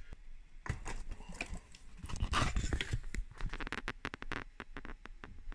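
Irregular knocks and clicks as a heavy 3D-printed RC excavator is handled and set down on a glass bathroom scale, with a quick run of sharp clicks about four seconds in.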